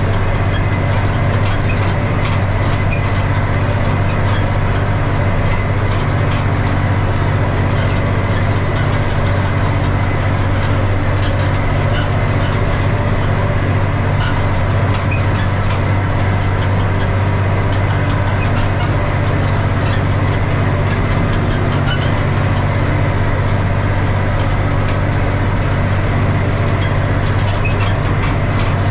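Valmet 118 tractor's diesel engine running steadily through a straight, unmuffled exhaust pipe, holding an even speed while the tractor pulls a seed drill.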